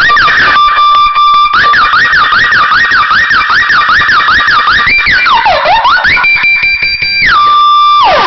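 Electronic siren-like tones from a sound-system test track, played loud through a single speaker box. A steady high tone breaks into a fast up-and-down wail about twice a second, then swoops down and back up, and ends in a long falling glide.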